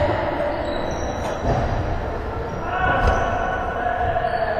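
Basketball game on a hardwood gym court: a ball bouncing, with a heavy thud about three seconds in, among players' distant, indistinct voices in a large hall.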